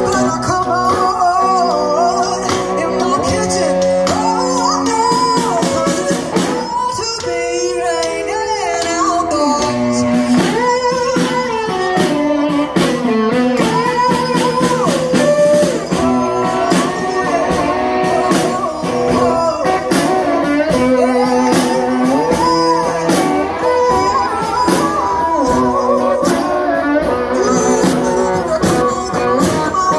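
Live blues band: a woman sings lead over guitar, with a hand-held snare drum struck with sticks keeping the beat.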